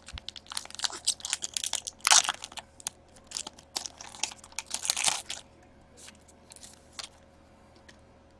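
A foil hockey-card pack wrapper being torn open and crinkled for about five seconds, followed by a few light clicks and rustles of cards being handled.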